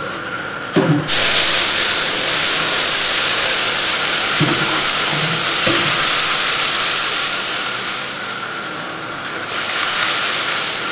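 Cooked dal poured into hot spiced oil in a wok, sizzling loudly as the lentils hit the oil: the tempering (tadka) of the dal. The sizzle starts suddenly about a second in, eases off, then swells again near the end as more dal is poured, with a few dull knocks along the way.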